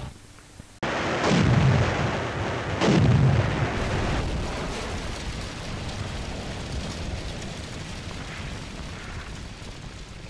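Two heavy explosions about a second and a half apart, each followed by a long rumble that fades slowly away.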